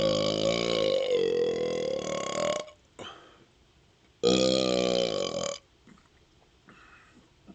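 A man belching on purpose after chugging Pepsi, the soda's carbonation bringing up the gas: one long burp of nearly three seconds whose pitch rises slightly toward its end, then a shorter burp of about a second and a half a little over a second later.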